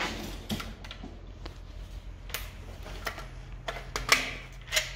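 SKS rifle shots: a few sharp cracks fired singly at uneven intervals, the loudest about four seconds in, with fainter clicks and pops between.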